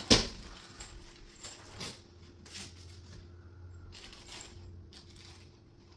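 A sharp knock as a flat-pack nightstand panel is set down, followed by scattered light clicks and taps of furniture parts and hardware being handled.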